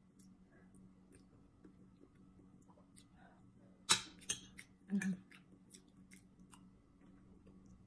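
Eating at the table: faint chewing and mouth clicks, with a metal spoon striking and scraping a ceramic plate sharply about four seconds in, followed by a few lighter knocks of cutlery.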